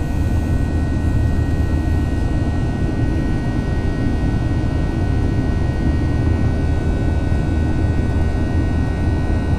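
Cabin noise inside a Boeing 737-800 in flight after take-off: the steady low rumble of its CFM56-7B turbofan engines and the rush of air along the fuselage, with a few faint steady hum tones above it.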